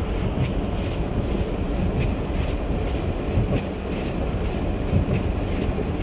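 Strong gale wind buffeting a parked camper van during a snowstorm: a loud, steady, deep rumble with faint irregular ticks.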